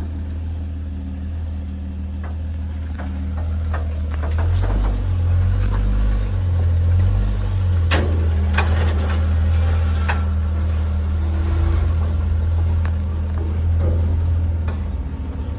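Off-road truck engine running steadily, its pitch shifting and rising between about four and eight seconds in as it takes load, with scattered sharp knocks and clicks, the loudest about eight seconds in.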